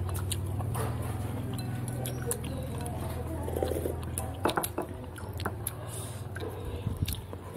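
Cutlery clinking against a bowl during a meal of noodle soup, with scattered short clinks over a steady low hum.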